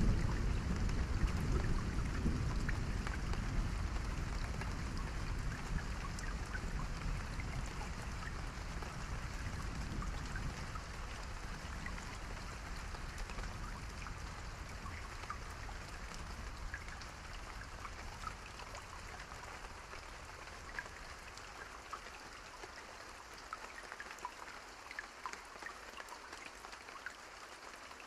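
Steady rain with many individual drops ticking sharply on a surface. A deep low rumble under it is loud at first and fades away over the first twenty seconds or so, leaving the lighter rain.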